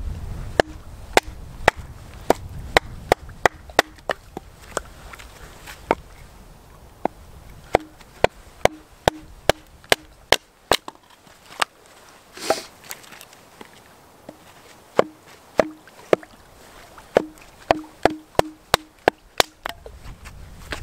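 Hatchet chopping and splitting a short length of firewood on a rock: dozens of sharp chops, often about two a second, in runs with short pauses between them.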